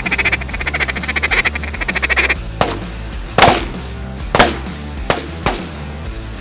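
A fast run of duck quacking for about two seconds, then five shotgun shots fired in quick succession at incoming waterfowl, the second and third the loudest, over a rock music bed.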